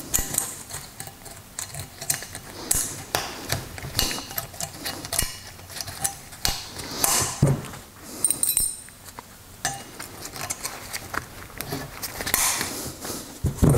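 Brake caliper bracket and its steel pad clips being worked by hand: irregular metal clinks and taps, with a couple of longer scrapes.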